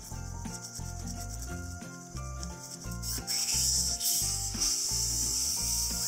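Toothbrush bristles scrubbing a perforated metal espresso shower screen. About halfway through, a steady, louder hiss of air from a blow gun aimed into the group head takes over. Background music plays throughout.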